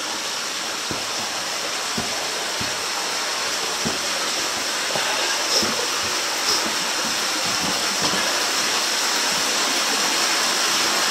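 Cave stream rushing: a steady hiss of running water that grows slowly louder, with a few faint knocks.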